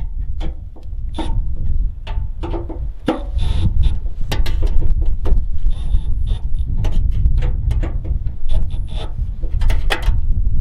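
Irregular sharp clicks and clinks of hand tools at work on the tractor, over a steady low wind rumble on the microphone.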